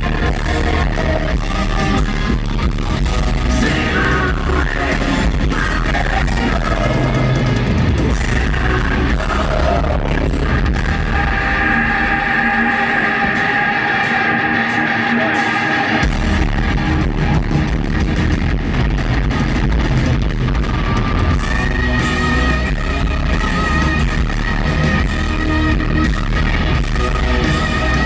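Live rock band playing loud. About twelve seconds in, the bass and drums drop away for a few seconds, leaving a held high chord, then the full band comes back in.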